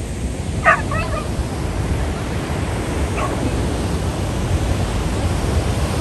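Steady rush of breaking surf and wind. A dog barks a few short times about a second in and once more around three seconds in.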